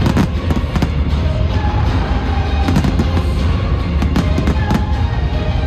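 Fireworks going off in clusters of sharp cracks and bangs, with bursts about a quarter second in, near three seconds and between four and five seconds in, over continuous music with a heavy bass.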